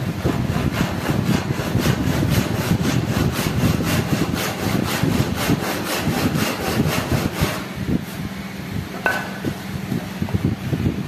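Hand saw cutting through a thin wooden strip with quick, even back-and-forth strokes, about three or four a second. The sawing stops a little before eight seconds in, followed by a single sharp clink about a second later.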